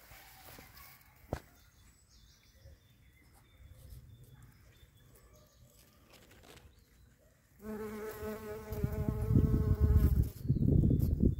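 Shrill carder bee (Bombus sylvarum) buzzing in flight close to the microphone: after several seconds of faint background, a steady, pitched buzz starts about two-thirds of the way in. A loud low rumble joins it near the end.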